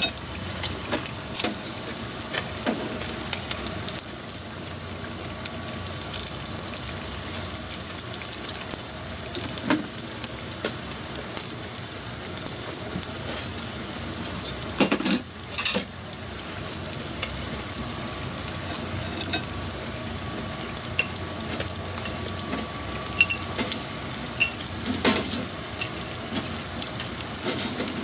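Black sea bream head and bone pieces (ara) shallow-frying in oil in a frying pan for karaage: a steady sizzle with constant fine crackling. The crackle swells louder twice, about halfway through and near the end.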